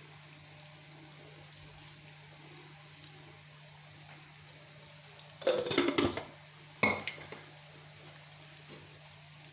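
A steel bowl knocking against the rim of a frying pan: a short clatter about five and a half seconds in, then a single sharp ringing clink about a second later, over a faint steady hum.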